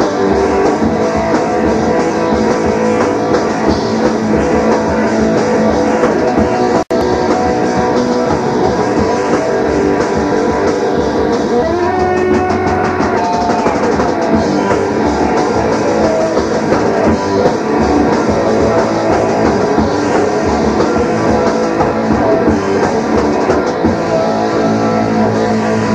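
Live rock band playing, with electric guitar and drum kit. The sound cuts out for a split second about seven seconds in.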